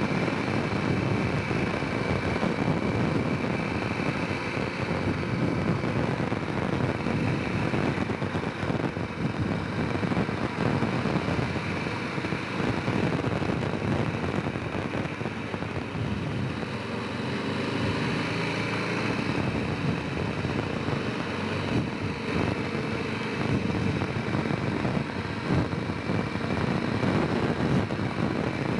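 Honda Rincon 650 quad's single-cylinder four-stroke engine running under way, its sound rising and falling with the throttle, with a brief easing off about two thirds of the way through.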